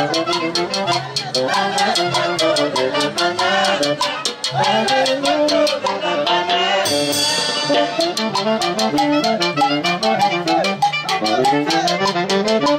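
Band music with brass instruments over a steady, quick percussion beat, from a Latin/Andean dance orchestra.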